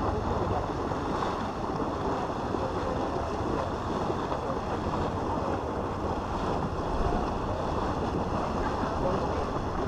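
Steady rushing wind noise on the microphone, with a low rumble underneath.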